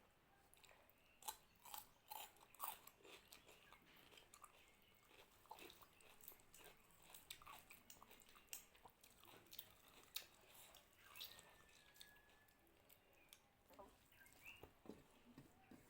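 A person chewing and eating mutton curry with rice, close to the microphone: soft irregular mouth smacks and chewing clicks, several a second.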